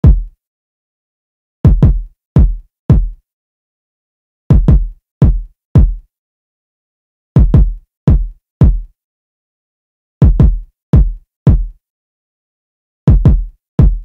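Drill-style electronic kick drum loop at 168 BPM played on its own: short, deep kicks that die away quickly, in a syncopated pattern of four hits, the first two close together, repeating about every three seconds with silence between.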